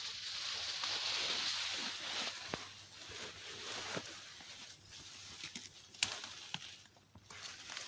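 Footsteps and rustling through grass and leafy undergrowth, a steady rustle over the first two seconds, then lighter movement with scattered short clicks, the sharpest about six seconds in.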